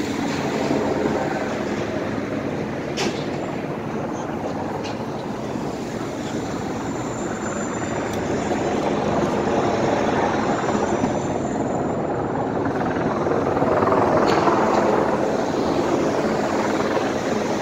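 City street traffic: a steady rumble of passing cars and other vehicles, swelling louder a few times as vehicles go by.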